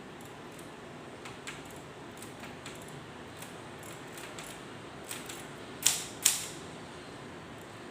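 K Clover 815 manual typewriter mechanism being worked by hand: a string of light clicks, then two sharp, loud clacks about half a second apart.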